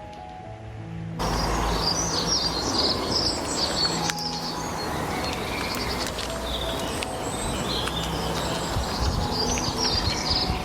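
Small birds chirping and singing in quick high notes over a steady outdoor rush, with a faint low hum underneath; the sound comes in suddenly about a second in.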